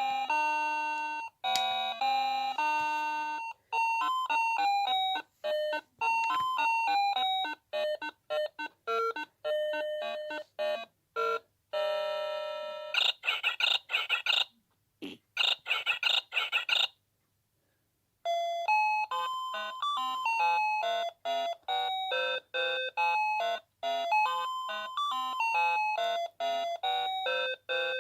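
NOA Precision Fruity Melody alarm clock playing its electronic beeping melodies one after another. The tune changes a few seconds in, a run of warbling ringing tones comes in the middle, and after a brief silence another tune starts.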